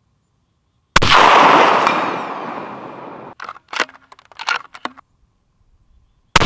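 Savage 12FV .308 bolt-action rifle fired twice, about five and a half seconds apart, each shot echoing away over a couple of seconds. Between the shots, a run of short metallic clicks as the bolt is cycled.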